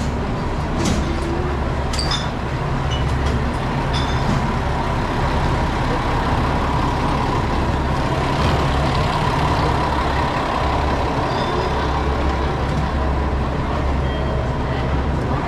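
KiHa 47 diesel railcar standing at the platform with its diesel engine idling: a steady low rumble with a faint steady whine above it.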